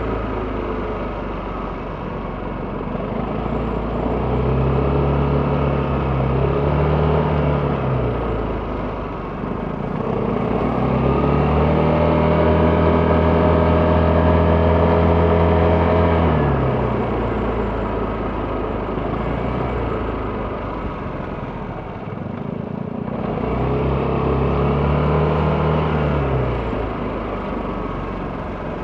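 Vespa GTS 300 scooter's single-cylinder engine under way, its pitch rising as the throttle opens, holding, then dropping as it eases off, three times over.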